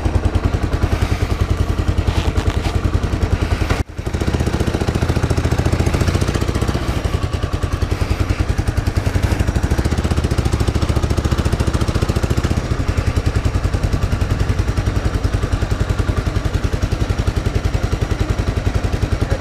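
A vehicle engine running steadily with an even, rapid firing pulse, broken by a brief dropout about four seconds in.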